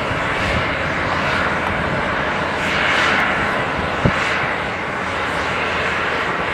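Airbus A320-200 jet engines on final approach: a steady rushing jet noise that swells a little about three seconds in, with one short click about four seconds in.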